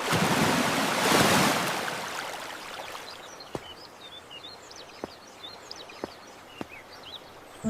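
A rushing, water-like noise swells and fades over the first two seconds. Then come faint, short, high chirps, like small birds, and four light clicks.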